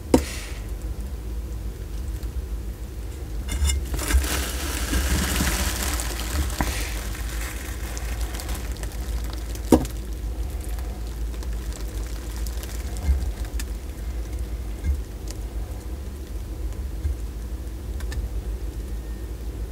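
Close-miked sulcata tortoise eating papaya: wet, squishy chewing for a few seconds early in the stretch, and a few sharp clicks of its mouth spread through the rest.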